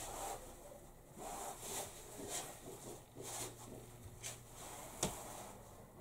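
Rustling and handling noises from a roller blind being turned over in the hands, with one sharp tap about five seconds in.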